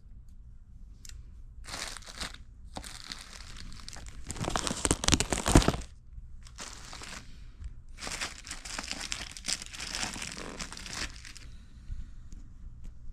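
Packaging being handled and torn open, in irregular bursts of crinkling and ripping, loudest about five seconds in.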